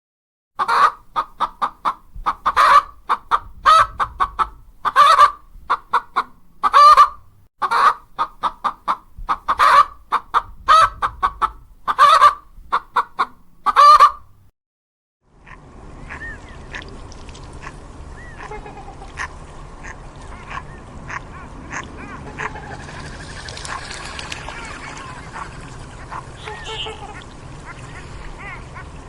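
Domestic waterfowl honking loudly in quick runs of repeated calls for about fourteen seconds. After a short break comes a quieter stretch of faint scattered bird calls over a steady background noise.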